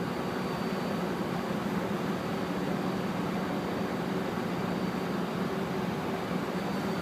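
Steady idling drone of a Metrolink diesel locomotive standing at the platform before departure: an even, low hum that does not change.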